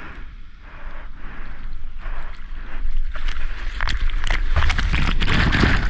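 Surfboard paddling: arms stroking through the water with rhythmic splashes about twice a second. From about three seconds in, the water gets louder and rougher, with rushing and splashing as the wave comes up.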